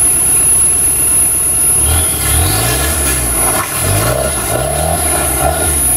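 Off-road 4x4 vehicle's engine revving repeatedly, its pitch rising and falling several times from about two seconds in over a steady low drone. A steady high-pitched whine runs underneath.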